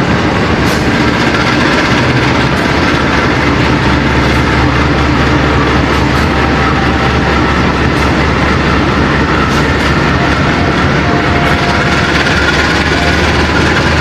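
Diesel-hauled long-distance passenger train pulling out of the station, a steady rumble of locomotive and coaches rolling by with occasional clicks of wheels over rail joints.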